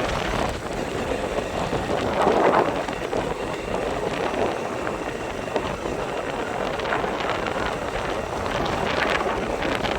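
Steady rushing noise of wind buffeting the microphone, swelling briefly about two and a half seconds in.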